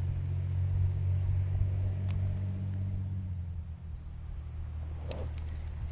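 Steady high-pitched chirring of field insects, with a low steady rumble underneath that thins out about halfway through.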